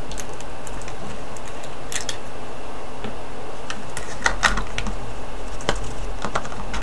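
Sharp plastic clicks and taps from a small clear plastic tub and its snap-on lid being handled and pressed shut. The clicks are scattered at first and come in a quick cluster past the middle, over a steady hiss.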